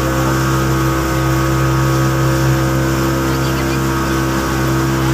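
Motorboat engine running steadily at cruising speed, droning at an even pitch, under the hiss of the wake and spray rushing past the hull.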